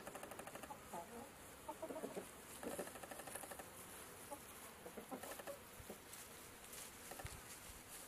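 Chickens clucking softly: a run of short low calls, thickest in the first three seconds, then only now and then.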